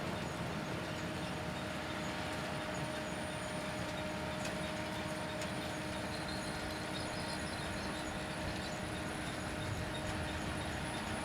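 Grimme Varitron 220 self-propelled potato harvester running steadily while lifting, its engine and webs making a constant mechanical rattle with a steady whine.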